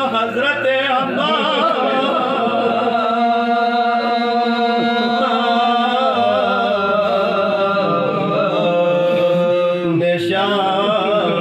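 A man chanting a Balti marsia, a Muharram elegy for the martyrs, without accompaniment. The voice wavers with vibrato and holds long notes.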